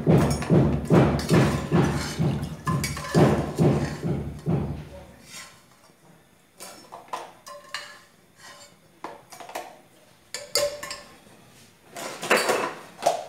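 Blows of a bricklayer breaking a masonry wall in the background, a steady beat of heavy thuds about two a second that stops about five seconds in. After that come light clinks of a metal spoon against an aluminium pot and a plastic tub, with a louder clatter near the end.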